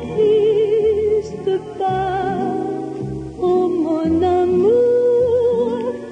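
Background music: a slow chanson melody of long held notes with a strong vibrato, over a full accompaniment.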